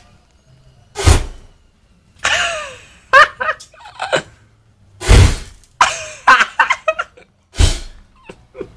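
Fire-breathing: three short whooshing bursts of flame blown from the mouth over a hand torch, about a second in, around five seconds in and near the end. Onlookers' voices exclaim and laugh between the bursts.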